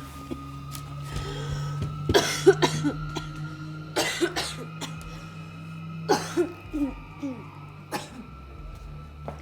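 A person coughing repeatedly, in bouts about every two seconds, over a steady low hum.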